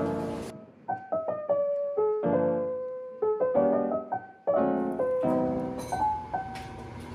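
Background music: a piano melody of separate notes.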